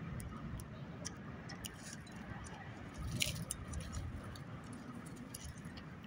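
Birds pecking and cracking sunflower seeds on a wooden feeder table: scattered small clicks and taps, with one brief sharp high sound about three seconds in, over a steady low background rumble.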